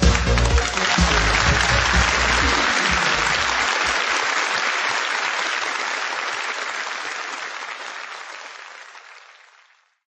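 Crowd applause: an even clapping noise that rises as a dance track's beat stops in the first few seconds, then slowly fades out.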